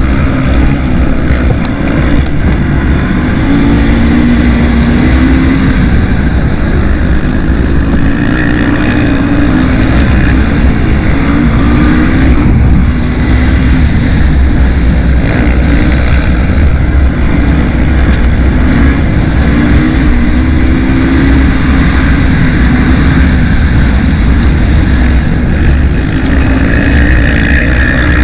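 Racing quad's engine running hard, loud and continuous, its pitch rising and falling again and again with throttle and gear changes, over a constant low rumble.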